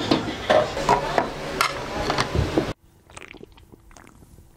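A lidded food container and dishes clattering with clicks and knocks as the container is lifted out of a microwave oven. A little under three seconds in, the sound drops suddenly to faint small sounds over a low steady hum.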